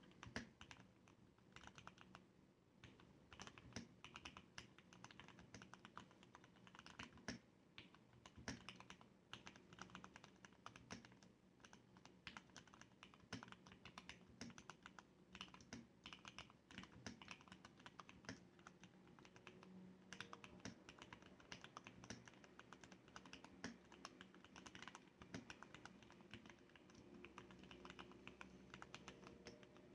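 Continuous typing on a Leopold FC660M mechanical keyboard with lubed Cherry MX Red linear switches and sound-dampening inside the case: a fast, irregular run of faint, soft keystroke clacks, several a second.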